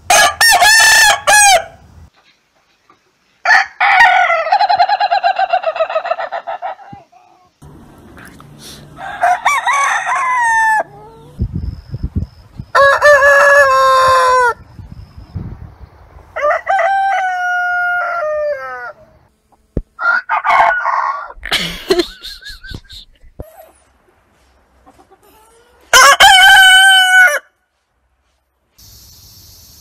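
Roosters crowing one after another, about seven separate crows, each one to three seconds long, with short pauses between them. The crows come from several different birds.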